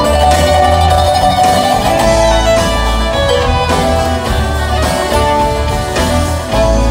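Live bluegrass band playing, a fiddle carrying the melody over strummed acoustic guitar and banjo, with drums and a bass line underneath.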